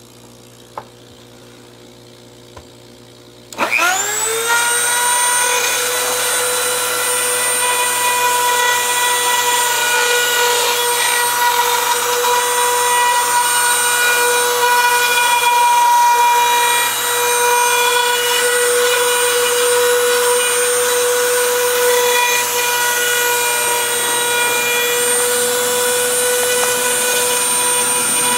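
A small high-speed rotary cutting tool starts about three seconds in, quickly whines up to a steady pitch and runs on, cutting the purfling channel around the rosette in the wooden guitar top. Before it starts there are a faint hum and a couple of light clicks.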